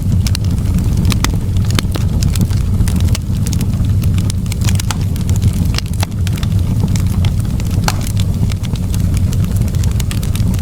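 Wood fire in a fireplace burning steadily, with a constant low rumble and frequent sharp crackles and pops.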